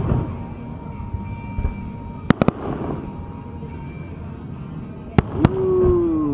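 Aerial fireworks shells bursting: sharp reports, a close pair about two and a half seconds in and another pair about five seconds in, over a rumbling background. Right after the second pair comes a drawn-out falling tone.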